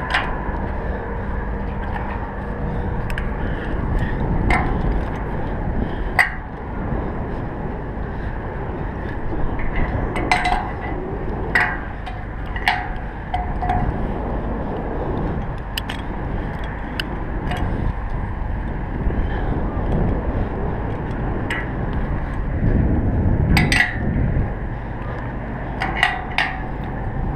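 Scattered sharp metal clinks with a short ring, from steel climbing hardware (snap hooks and carabiners) knocking against the step bolts and galvanized steel pole during a tower climb, over steady wind noise on the microphone.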